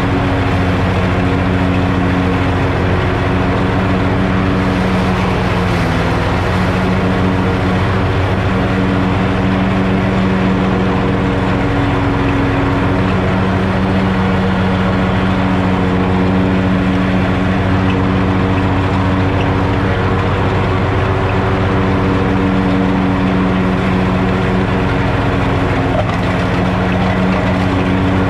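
2020 Hustler FasTrak 54-inch zero-turn mower running steadily while mowing grass, engine and cutting deck going together; the engine note dips briefly about six seconds in.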